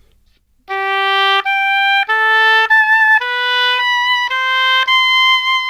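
Solo oboe playing four pairs of notes, starting about a second in. Each note is followed by the same note an octave higher, and each pair starts one step above the last. It demonstrates the thumb octave keys that take the oboe into its higher octave.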